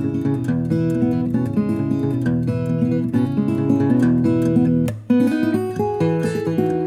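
Solo fingerstyle playing on a steel-string acoustic guitar with an Italian spruce top and New Guinea rosewood back and sides: a bass line under plucked and strummed chords and melody. Just before the end there is a brief dip, then a strong chord.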